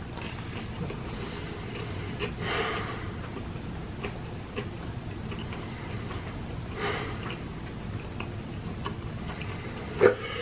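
A person breathing at a table: two slow, breathy exhales about four seconds apart over a steady low room hum. Faint scattered ticks run through it, and there is one sharp click near the end.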